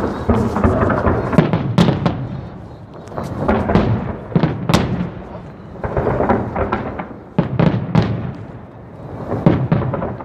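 Aerial fireworks going off in quick succession: sharp bangs and crackling that come in waves every couple of seconds.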